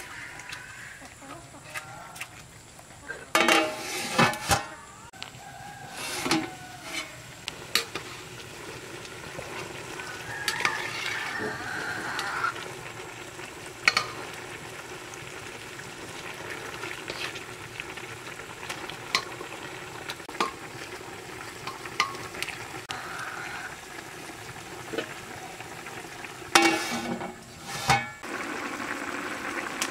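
A metal ladle stirring meat in a large aluminium cooking pot, scraping and knocking against the pot's side, over a steady hiss of cooking from the pot. There are louder metal clatters about four seconds in and near the end, when the metal lid goes onto the pot.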